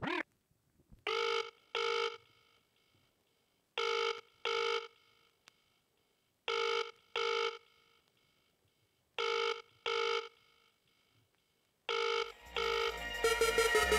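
Telephone ringing in a double-ring pattern, two short rings at a time, repeated five times about every 2.7 seconds. Near the end a deep bass and drum and bass music come in under the last ring.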